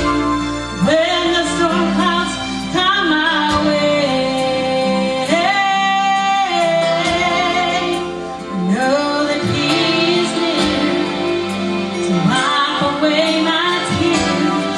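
Gospel vocal group singing a song over instrumental accompaniment, with long held notes sung with vibrato.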